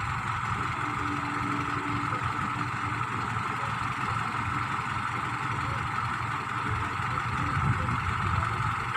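Vehicle engine idling steadily, a low rumble, with a steady hiss higher up.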